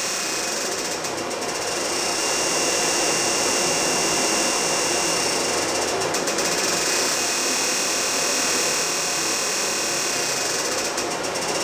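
EMSlim Neo electromagnetic body-sculpting machine running a treatment, its applicator handles pulsing and its cooling running, making a steady, dense mechanical buzz.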